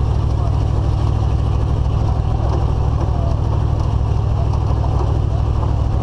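Steady low rumble of a GMC Suburban driving along a dirt road towing a loaded trailer: engine and road noise.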